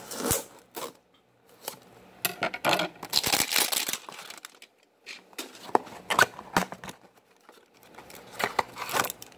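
A Panini Chronicles basketball card pack being torn open and handled, its wrapper crinkling and tearing in several bursts, the longest lasting a couple of seconds, with short quiet gaps between.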